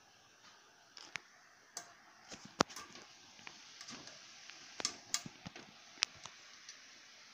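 Irregular clicks and light taps of a hand tool on the plastic deflection yoke and its clamp ring at the neck of a CRT television's picture tube, as the ring is worked loose. One sharper click comes about two and a half seconds in.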